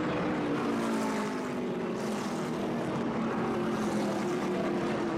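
NASCAR Sprint Cup stock cars' V8 engines running together in a steady drone, their pitch sliding slowly up and down.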